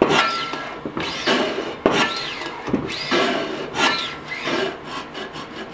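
Stainless-steel lever-action potato chip cutter worked empty, about once a second: on each stroke the plunger slides along its guide rods with a scraping squeal that rises and falls. The plunger is catching and rubbing on one side and needs lubricating.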